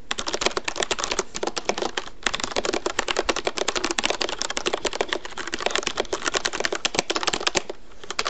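Rapid typing on a mechanical keyboard with Cherry MX Black switches: fast, dense key clicks, broken by a short pause about two seconds in.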